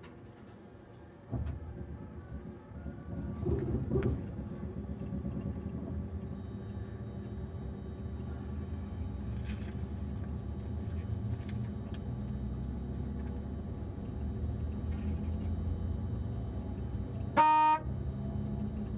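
Thalys TGV high-speed train running, heard from the driver's cab: a steady low rumble that starts about a second in. Near the end there is one short, loud tone about half a second long.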